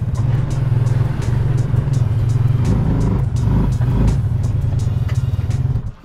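UTV engine running steadily close by, with light rattles and clatter over it; it cuts off suddenly at the end.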